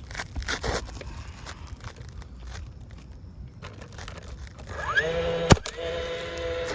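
Crackling and crinkling from asphalt shingles being handled. About five seconds in, a motor spins up with a rising whine and then runs steadily, with one sharp loud click just after it starts.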